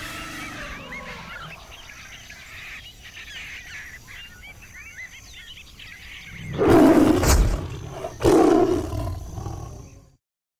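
Jungle ambience with birds chirping, then a tiger roars twice, each roar about a second long. The sound cuts off suddenly near the end.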